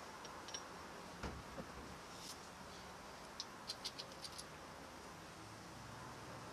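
Faint scattered clicks and taps of hands handling small metal fittings and wiring at a motorcycle's steel frame tube, with a quick cluster of light ticks about three and a half seconds in.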